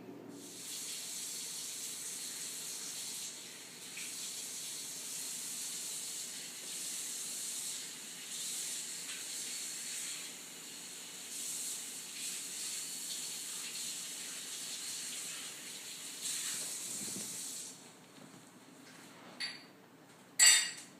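A breathy, high hiss that swells and fades again and again, then stops. Near the end a faint short sound is followed by a sudden loud human sneeze.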